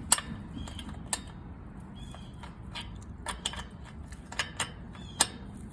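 Crescent wrench clicking and clinking on the metal hinge bolt of a chain link fence gate as it is worked loose: irregular sharp metal clicks, a few of them louder.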